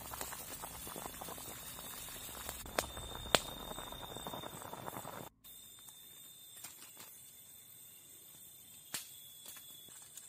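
Forest insects trilling in steady high tones over a bed of crackling noise and scattered sharp clicks. About five seconds in the sound cuts abruptly to a quieter stretch where the insect trill goes on with only occasional clicks.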